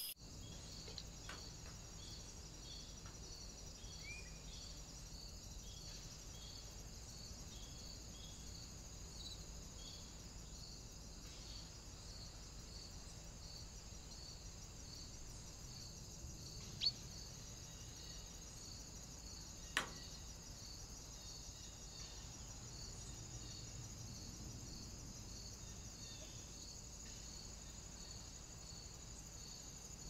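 Faint, steady high-pitched chirring of insects, with a pulse repeating about once a second. Two short sharp clicks stand out near the middle.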